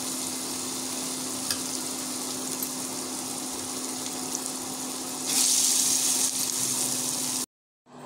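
Chana dal batter fritters deep-frying in hot oil in a steel pan: a steady sizzling hiss that grows louder about five seconds in, then cuts off abruptly near the end. A steady low hum runs underneath.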